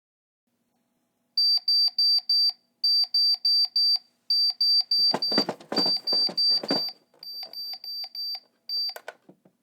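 An electronic alarm beeping in quick groups of four or five, about four beeps a second, with short pauses between the groups, in the pattern of a digital alarm clock. About five seconds in a burst of rustling noise rises over it. The beeps then go on fainter until a click about nine seconds in, after which they stop.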